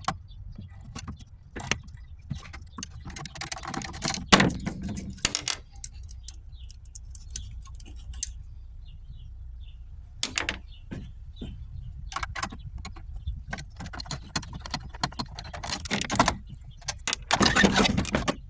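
Small metal parts and hand tools clinking and rattling in irregular clicks and knocks while a battery charger is taken apart. The rattling gets denser near the end.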